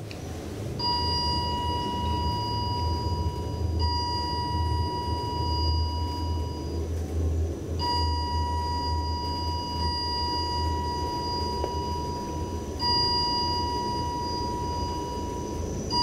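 A steady, high electronic alarm beep, held for several seconds at a time, with a short break about halfway through. A steady low hum runs underneath.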